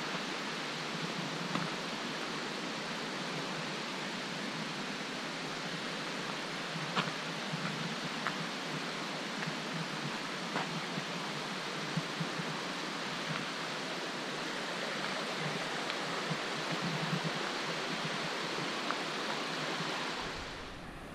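Steady rushing of water from a rainforest creek or waterfall, an even hiss with a few faint ticks now and then.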